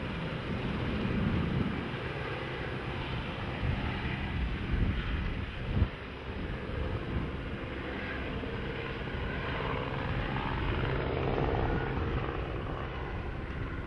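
Helicopter running steadily overhead, its rotor and engine heard as a continuous wash of noise with a low steady hum, with a brief knock about six seconds in.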